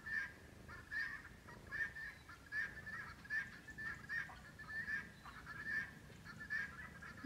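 Faint poultry calls, short honking notes repeated at a steady pace of about one every second.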